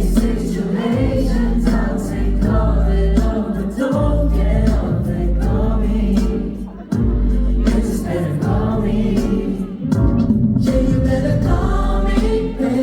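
A pop song played loud over a concert sound system, with singing over a heavy bass beat. The music drops out briefly about seven seconds in.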